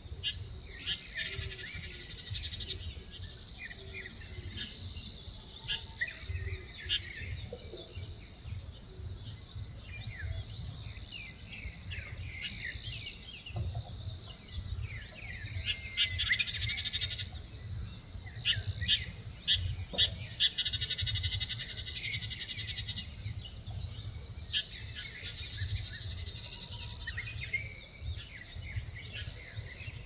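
Summer woodland chorus: small birds chirping in short calls over a steady high insect hum, with louder insect buzzing swelling and fading several times. A low rumble runs underneath.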